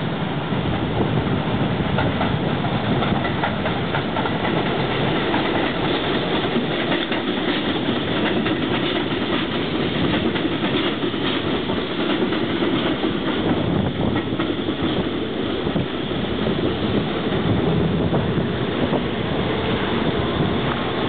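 R32 subway train running along an elevated viaduct, a steady loud rail noise from its wheels and cars, with faint clicks of wheels over the rail joints in the middle stretch.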